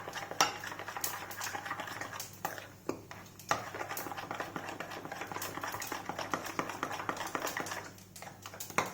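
A spoon stirring semolina batter in a bowl, scraping and clicking against the bowl's sides, with short pauses about three seconds in and near the end. This is the Eno fruit salt being mixed into the batter.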